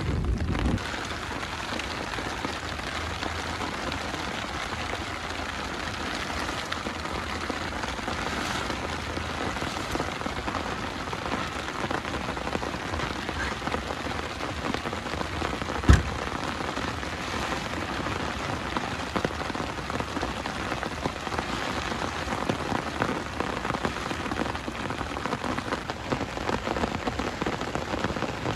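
Steady rain falling. A low rumble fades out under a second in, and a single sharp knock about 16 seconds in stands out as the loudest sound.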